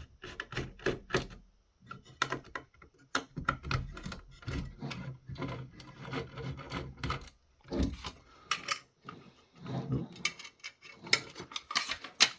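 Irregular clicks, scrapes and light rattles of a screwdriver and loose hardware working against the heavy metal case and circuit board of an electronic siren controller being taken apart.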